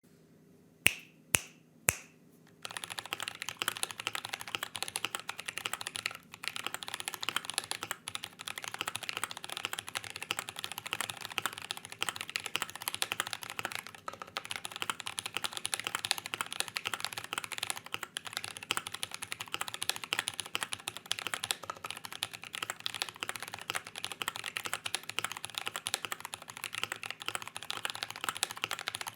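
Custom GMMK Pro mechanical keyboard with a polycarbonate plate and lubed, filmed C3 Kiwi tactile switches, typed on fast and continuously. The typing starts after three sharp clicks about a second in.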